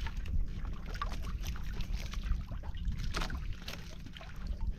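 Wind buffeting the microphone and water lapping against the hull of a small outrigger boat drifting at sea, a steady low rumble broken by a few light knocks and splashes.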